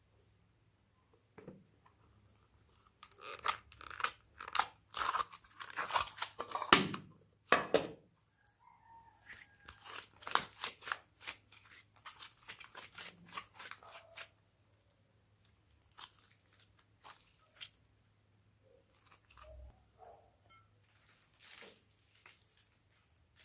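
Slime being handled by hand, crackling and crunching, dense for the first half and then sparser.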